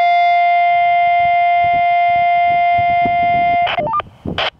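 TYT TH-350 handheld radio's speaker playing a received 2-metre audio test tone: one steady, buzzy tone around 700 Hz that stops about three and a half seconds in. A short run of higher beeps follows, then a brief burst of noise near the end.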